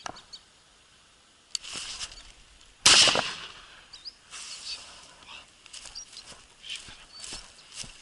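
A single shot from a side-by-side double-barrelled shotgun about three seconds in, the loudest sound, trailing off over half a second. A softer knock and brief rustle come shortly before it, and short high bird chirps follow.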